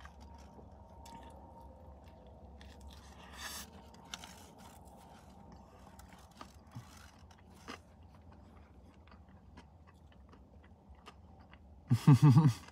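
Close-up chewing of fast food, burger and chicken nuggets, with soft crunches and wet mouth clicks. Near the end comes a short, loud voiced sound from the eater.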